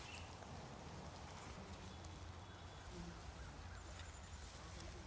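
Faint outdoor background: a steady low rumble under a soft hiss, with a few faint, brief sounds about two and three seconds in.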